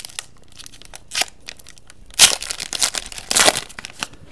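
Trading-card packaging being crinkled and torn open by hand in several short, noisy bursts, the loudest about two seconds in and again near the end: a new box or pack of cards is being opened.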